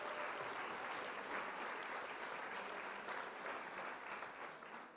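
Applause, many hands clapping, fading out near the end.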